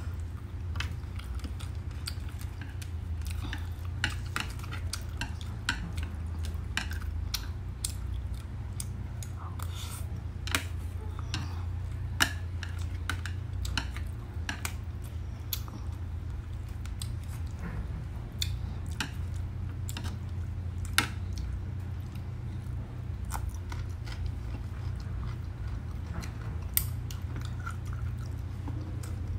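Close-up eating sounds: chewing of roast pork and winged beans, with frequent sharp clicks of chopsticks and a metal spoon against a ceramic plate. A steady low hum runs underneath.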